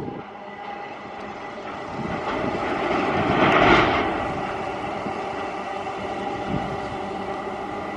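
Freight train passing: a steady rail running noise with faint steady ringing tones, swelling to its loudest about three and a half seconds in and then easing off.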